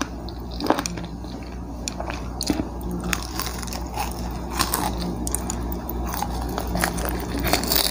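A person biting and chewing fried chicken, with scattered small crunches and clicks. The crunching grows denser near the end.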